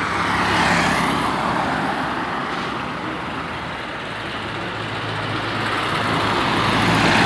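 Road traffic: vehicles passing close by in a steady rush that swells about a second in and again near the end, over a low, steady engine hum.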